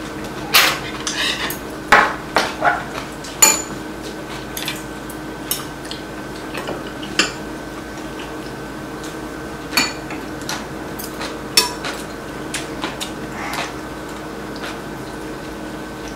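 Metal chopsticks and spoons clinking against ceramic bowls and plates in scattered, irregular clinks. A few louder clinks ring briefly, most of them in the first few seconds and again about ten seconds in.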